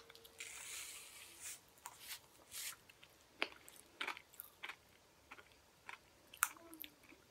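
Pop Rocks candy pouring out of its packet with a brief rustling hiss, then faint scattered crackles and clicks of the candy popping and being chewed in the mouth.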